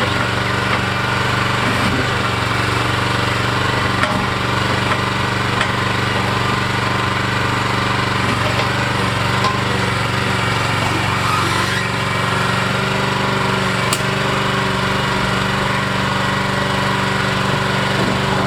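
Small gasoline engine on a mini excavator running steadily at constant speed, with a few brief knocks, one about 4 seconds in and one about 14 seconds in.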